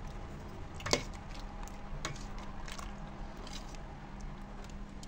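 A spoon stirring thick pepper-and-tomato lecho in a stainless steel pot, just after cornstarch slurry has been poured in to thicken it: soft squelching with a few light clicks of the spoon against the pot, the sharpest about a second in, over a steady low hum.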